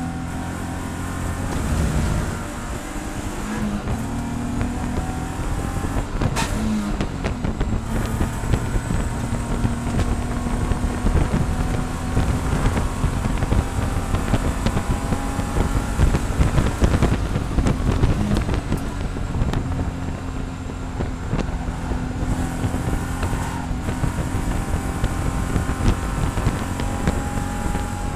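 BMW E46 race car's engine heard from inside the cabin, running at high revs and pulling hard as the car gains speed down a straight, then easing later as it slows.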